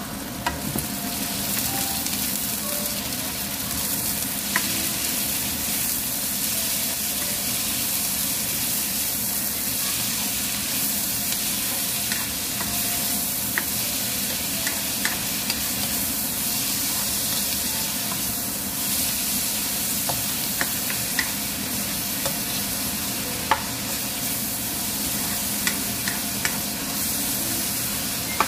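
Shrimp, onion and garlic sizzling steadily in hot oil in a nonstick wok while a spatula stirs them, with scattered light clicks and scrapes of the spatula against the pan.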